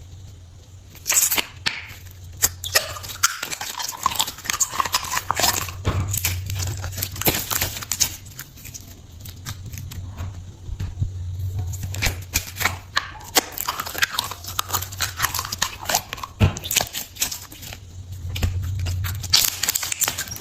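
Slime being squeezed and pressed by hand: a dense, irregular run of sticky clicks, crackles and crunches.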